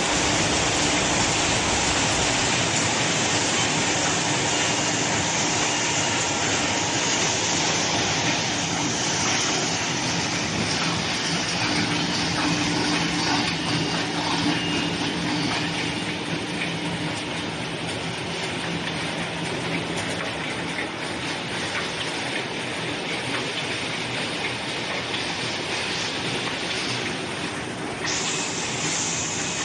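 Automatic facial tissue box packing machine line running: a dense, steady mechanical clatter of conveyors and packing mechanisms with a faint low hum through the first half. Near the end the sound turns abruptly brighter and hissier.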